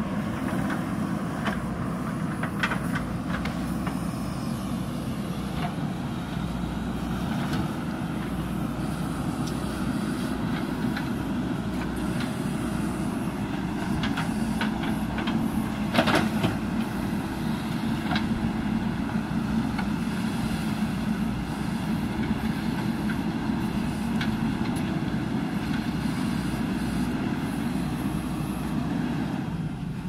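JCB 3DX backhoe loader's diesel engine running steadily under load while the backhoe digs. A few sharp metallic knocks come from the arm and bucket, the loudest about halfway through.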